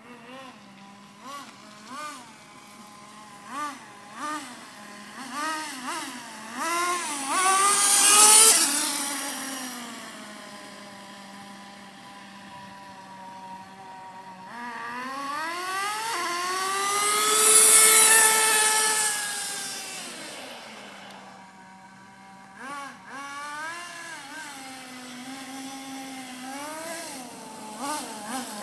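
Kyosho MFR nitro RC monster truck's small two-stroke glow engine, still being broken in on its fifth tank. It idles with short throttle blips, then revs up to a loud high-pitched run whose pitch falls away as the truck drives off. About halfway through it comes back with a second long rise and fall in pitch, then settles to idle with more quick blips near the end.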